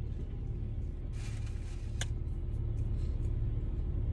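Steady low rumble inside a car cabin, with faint music playing from the stereo and a light click about two seconds in.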